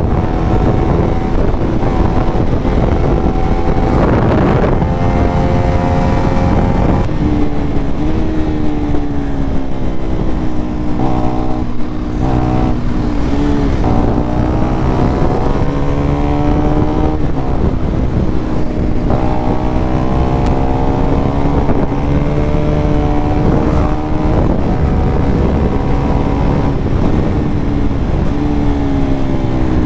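Sport motorcycle engine running at road speed from the rider's seat. Its pitch holds, rises and falls slowly with the throttle and dips briefly a few times, over a steady rush of wind and road noise on the microphone.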